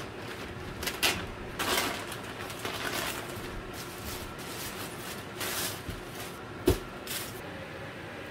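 Plastic mailer bag being slit open and its plastic wrapping crinkling in several irregular bursts as the contents are pulled out and handled, with one sharp knock about two-thirds through.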